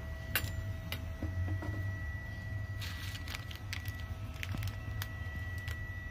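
A plastic packet of cumin seeds being handled, with crinkling rustles and small clicks, the densest about three seconds in, over a steady low hum with a faint thin whine.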